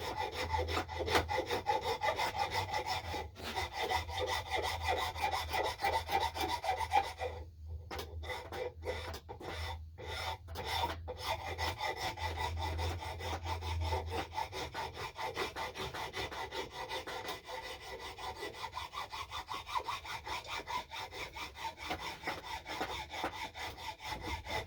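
Hand file rasping on a wooden axe handle in quick back-and-forth strokes, shaping the knob. About seven seconds in the filing pauses briefly, a few separate strokes follow, and then it resumes steadily.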